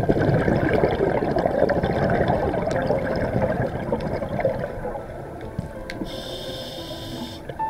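Underwater bubbling rush of a scuba diver's exhaled air from the regulator, strong for about four seconds and then easing, with a short hiss near the end.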